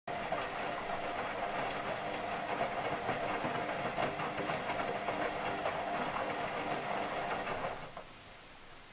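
Front-loading washing machine running, a steady rattling hum with a constant mid-pitched tone from the drum and motor, fading down near the end.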